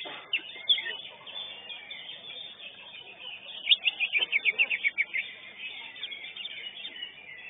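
Green leafbird (cucak hijau) singing in a contest cage: continuous twittering with a loud, rapid run of about ten notes in a second and a half near the middle. A sharp click sounds at the very start.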